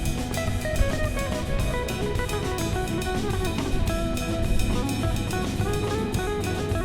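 Background music with guitar and drum kit playing at a steady beat.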